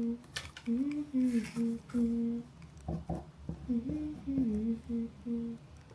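A person humming a tune to herself in two short phrases of held notes and small glides, with a few light clicks between the phrases.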